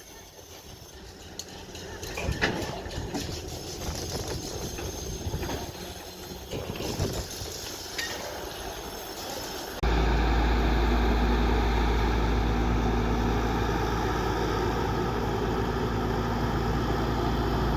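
An excavator's engine running steadily and loudly, cutting in abruptly about ten seconds in. Before that there is a stretch of scattered knocks and clatter over mixed noise.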